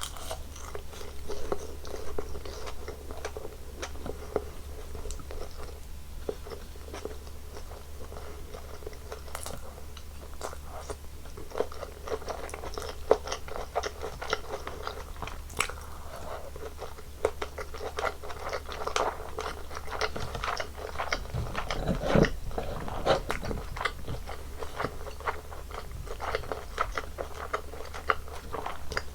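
Close-miked eating of a Korean home meal of bulgogi, kimchi, laver and rice: a rapid, irregular run of small clicks and crackles from biting and chewing, with a steady low hum underneath. A louder, lower mouthful sound stands out about three quarters of the way through.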